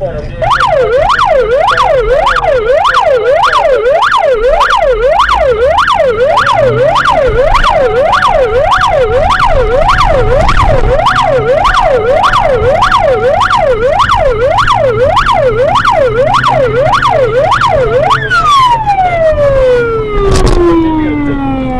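Police car siren in a fast yelp, its pitch sweeping up and down about twice a second, then winding down in one long falling glide near the end. A single thump comes a couple of seconds before the end.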